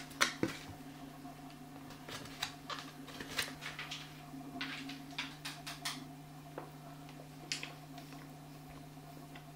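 Scattered light clinks and taps of cutlery and dishes as people eat, over a steady low hum.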